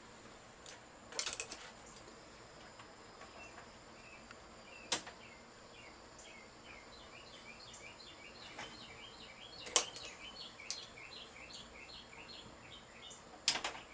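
Sharp clicks and snaps of a hand tool on wiring in an open metal breaker panel: a quick cluster about a second in, then single clicks spaced a few seconds apart. From about halfway, a run of rapid high bird-like chirps goes on in the background.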